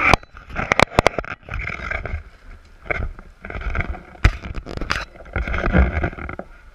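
Handling noise from a handheld camera being carried and swung about: rubbing and rustling on the microphone with a low rumble, broken by several sharp knocks, most of them about a second in and a cluster past the four-second mark.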